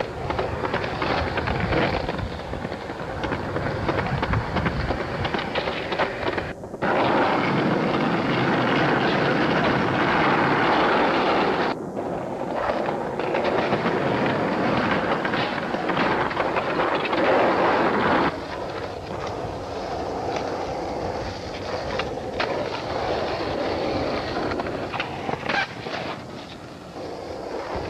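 Skateboard wheels rolling loud over rough pavement, with sharp clacks of the board popping and landing. The rolling noise changes abruptly several times.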